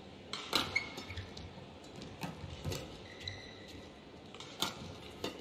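Badminton rally: several sharp racket strikes on the shuttlecock a second or two apart, with brief shoe squeaks and footfalls on the court mat.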